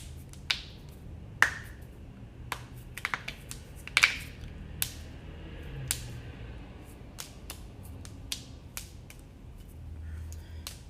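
A person cracking their own joints after waking: a string of about a dozen sharp pops and cracks at uneven intervals, with a quick cluster about three seconds in. The loudest pops come about a second and a half in and about four seconds in.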